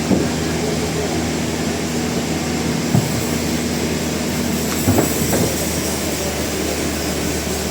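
Sawmill machinery running with a steady low hum, with a few clunks: one at the start, one about three seconds in and a short cluster about five seconds in.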